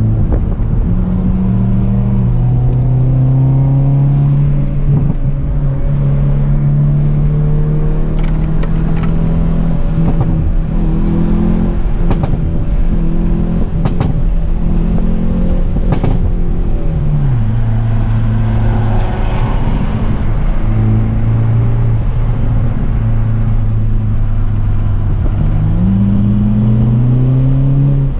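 Hyundai Veloster N's turbocharged four-cylinder engine under load, heard from inside the cabin: a steady engine note that drops in pitch a little past halfway and climbs again as it accelerates near the end. Three sharp cracks come around the middle.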